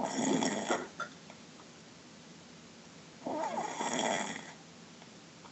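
A person snoring loudly: two rasping snores about three seconds apart, the second coming a little over three seconds in.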